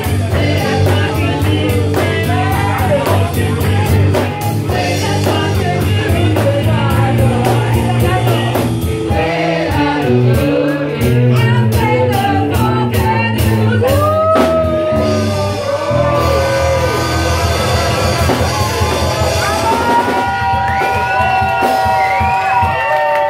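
Live rock band playing: a woman singing over bass guitar, electric guitar and drums, with a steady drumbeat. From about halfway the singing turns to long sung notes with vibrato, and near the end long notes are held.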